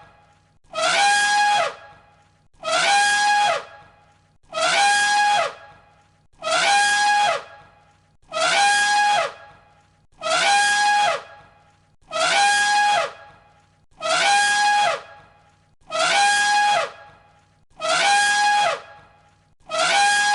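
Elephant trumpeting, the same recorded call looped: about ten identical blasts, each about a second long and two seconds apart, each a steady high blare whose pitch drops at the end.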